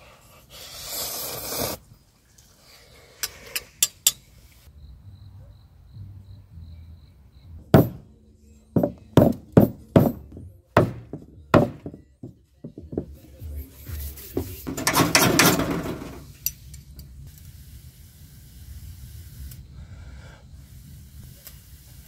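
A run of about eight sharp wooden knocks in about four seconds, with rustling swells before and after, as birch firewood is handled on a wooden deck.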